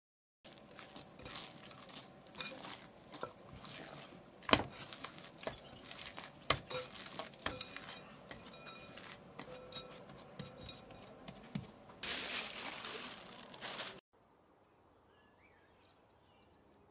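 Hands working a ball of bread dough in a glass bowl: soft handling noise with irregular knocks and clinks against the glass, the sharpest about four and a half seconds in. Near the end comes about two seconds of rustling hiss, then the sound drops suddenly to a faint background with a few faint chirps.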